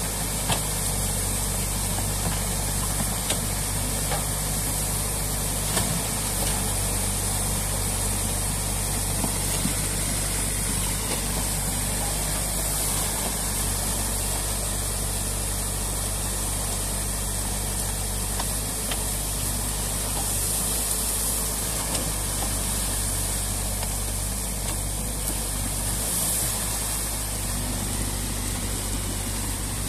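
A New Holland Kobelco E 50.2 C mini excavator's diesel engine runs steadily over water gushing and splashing through a breached beaver dam, with a few faint knocks.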